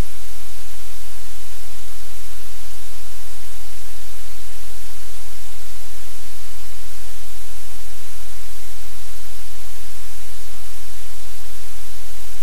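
Loud, steady static-like hiss with a low hum beneath it, unchanging throughout.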